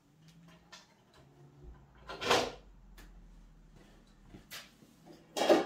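Sawn 2x3 lumber boards clunking against a wooden frame as they are set in place: a loud wooden clunk about two seconds in, another near the end, and a few light clicks and taps between.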